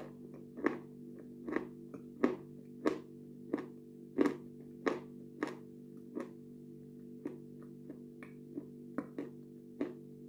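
Close-miked mouth sounds of chewing with the lips closed: sharp wet smacks and clicks about every two-thirds of a second, louder in the first half and fainter later. Quiet background music plays underneath.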